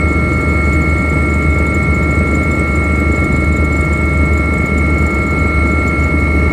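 Steady drone heard from inside a flying helicopter: a deep hum of rotor and engines with a constant high whine above it.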